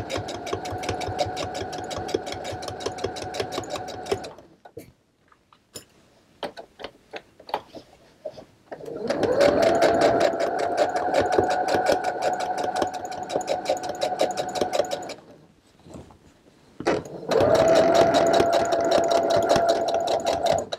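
Brother domestic sewing machine stitching through layers of upholstery canvas in stop-and-go runs: about four seconds of rapid stitching, a pause with a few light clicks, then two more runs, each starting with a rising motor whine. The short back-and-forth runs fit a lock stitch being sewn at a pocket corner.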